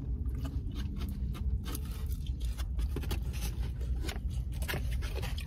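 Eating and food-handling noises close to the microphone: a run of small clicks and crackles from chicken wings being pulled apart and food being handled, over a low steady rumble.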